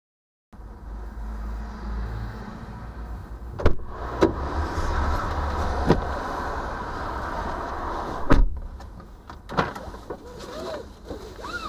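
Car door clicking open and a person climbing into the driver's seat against a steady outdoor rumble, then the door slamming shut with a loud knock about eight seconds in. After that the outside rumble is muffled, with small clicks and rustles inside the cabin.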